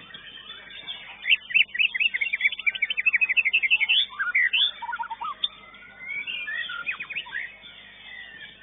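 Caged songbird singing: a fast run of rising whistled notes, about eight a second for some three seconds, then varied whistles and short phrases.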